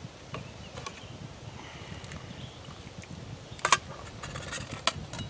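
A utensil stirring food in a pan over a campfire: scattered scrapes and clicks over a low rumble, with two sharp clinks about three and a half and five seconds in.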